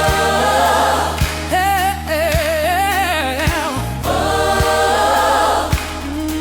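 Gospel soul groove music: a choir holding chords, with a solo voice singing with wide vibrato in the middle, over a steady bass and a kick drum about once a second.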